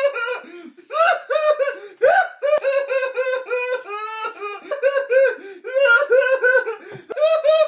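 A man's exaggerated, high-pitched mock sobbing: a run of short wailing cries, about three or four a second, with one longer drawn-out wail about four seconds in.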